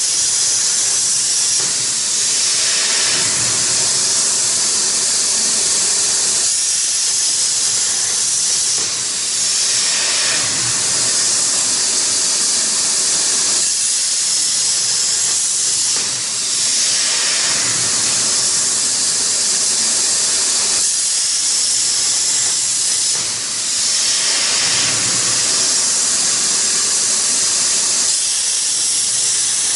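CNC plasma cutter's torch cutting steel plate: a loud, steady hiss that dips briefly a few times.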